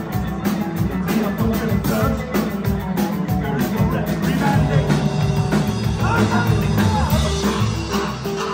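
A live band playing: drum kit keeping a steady beat under electric bass guitar and keyboard, loud and continuous.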